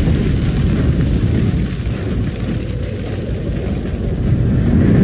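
Anime fire sound effect: a loud, steady low rumble of rushing flames that swells a little near the end.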